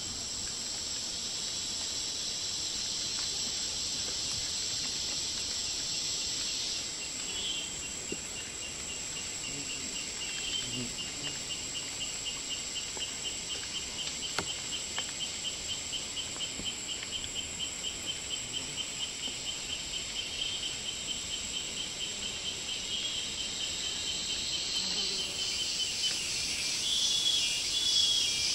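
Forest insect chorus: a steady high-pitched buzz, with a denser hiss that drops away about seven seconds in and swells again near the end, and a pulsed chirping repeating about twice a second through the middle.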